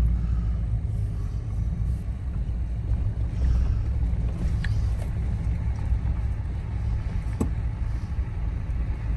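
Low, steady rumble of a vehicle's engine and tyres heard from inside the cabin while driving slowly, with a couple of light clicks about midway and near the end.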